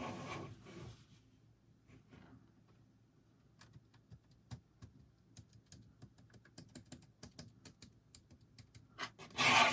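Keys of a LEGO Typewriter (set 21327) being pressed one after another: a run of light plastic clicks, several a second, starting a few seconds in. A louder burst of noise comes near the end.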